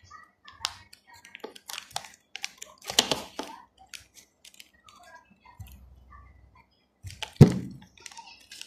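Hands handling and opening plastic packaging and small plastic toy parts: scattered clicks and crinkles, with one louder knock about seven seconds in.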